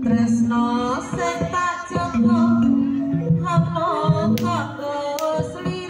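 Live Javanese jaranan music played through a large sound system: a wavering, ornamented sung melody over accompanying instruments.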